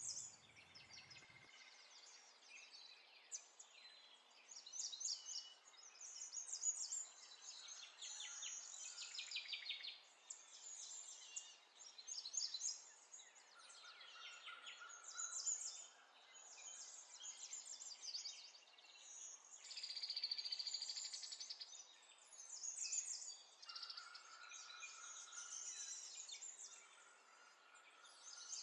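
Faint songbirds singing, a steady stream of short chirps and rapid high trills throughout.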